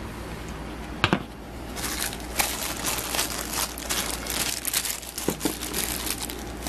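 Clear plastic bag crinkling as it is handled and pulled at to get a small power adapter out, a dense crackle from about two seconds in. A single light knock comes about a second in.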